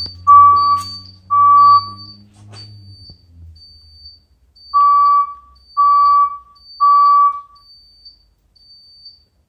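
Temporal-three alert tone from the start of a Fire-Lite voice evac message, sounding through a System Sensor SP101W24LO speaker strobe. Mid-pitched beeps come in threes, one per second: the end of one group, a pause of about three seconds, then three more. A faint short high chirp repeats about every 0.8 s.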